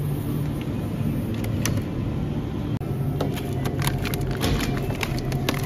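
Plastic packaging of frozen meat crinkling and crackling as it is handled, in quick irregular clicks that grow busier after about three seconds, over a steady low hum.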